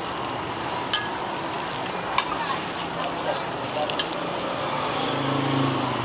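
Roti frying on a hot griddle: a steady sizzle, broken by three sharp clicks.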